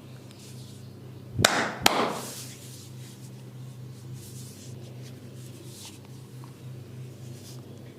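Two sharp, loud cracks less than half a second apart, about a second and a half in, from a barber's head and neck massage, over a steady low hum.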